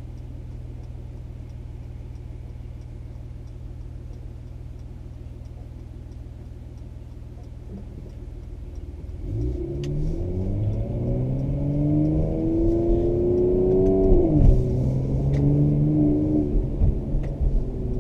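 2017 Mercedes-AMG C43's twin-turbo V6 heard from inside the cabin: a low steady drone for about nine seconds, then a hard acceleration with the engine note rising for about five seconds, dropping suddenly at an upshift, then pulling and rising again.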